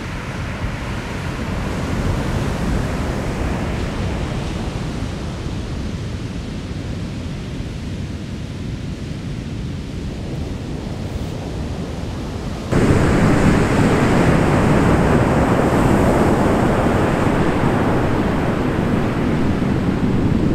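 Pacific Ocean surf breaking on a sand beach: a steady wash of waves. About two-thirds of the way through it cuts suddenly to a louder, fuller wash.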